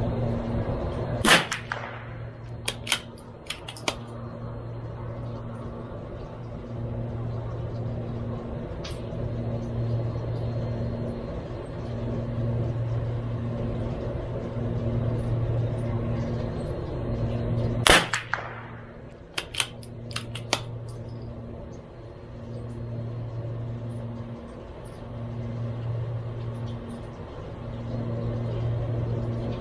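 CZ 457 MTR bolt-action .22LR target rifle fired twice with a long pause between, each shot a sharp crack followed by a few light clicks of the bolt being cycled. A low hum swells and fades underneath.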